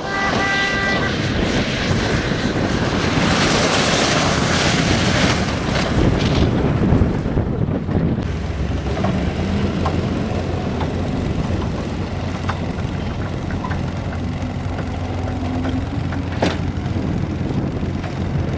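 Old GMC tow truck's engine running and revving as it drives through mud, with wind noise on the microphone.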